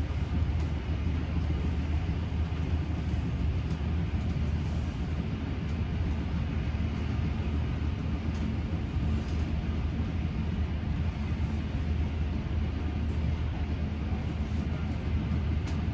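Steady low rumble of an old railway carriage running at speed along the track, heard from inside the carriage, with a few faint clicks.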